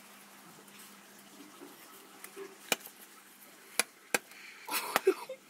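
Paper toy-gun caps going off in a burning pile of matches: four sharp pops, the first about two and a half seconds in and the rest about a second or less apart, with a short fizzing burst near the end.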